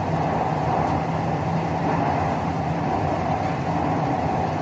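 Metro train running through a tunnel: a steady rumble with a low hum, at an even level throughout.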